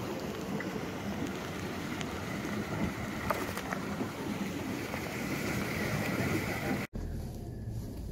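Light rain falling on a lake around a pedal boat, heard as a steady even noise with faint ticks of drops. About seven seconds in it cuts abruptly to a quieter low hum from inside a moving car.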